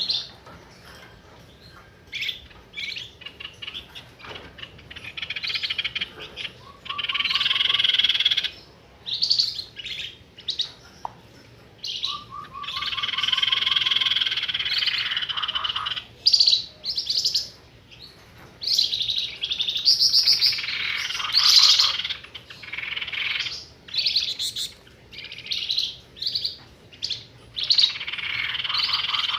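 Bird-lure recording of the songbird called flamboyan in Indonesia: short high chirps repeated with gaps, alternating with several long, fast trills of one to four seconds, a few of them opening with a quick low stutter of pulses.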